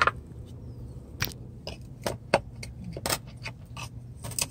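Scattered light clicks, taps and rattles of small hard objects being handled, irregular and close together, over a faint steady low hum.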